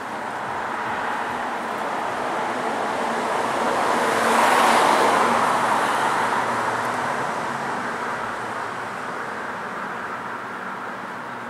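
A car passing by, its road noise swelling to a peak about halfway through and then fading away.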